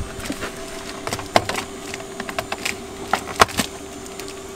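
Irregular clicks and clacks of a blister-packed scraper set's cardboard card and plastic shell being handled and pulled off a metal pegboard display hook, with two louder clacks about one and a half and three and a half seconds in. A steady hum runs underneath.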